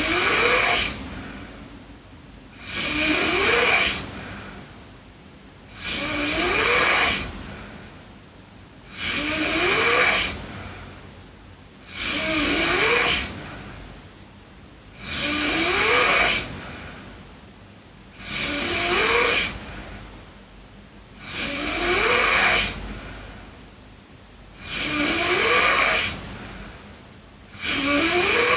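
A sleeping girl snoring steadily, one snore about every three seconds, each lasting about a second and rising in pitch.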